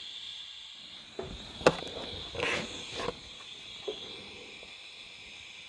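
Steady hiss of argon shielding gas flowing from a TIG torch before the arc is struck. A few light knocks and clicks come between about one and four seconds in, as the filler rod and torch are handled at the workpiece.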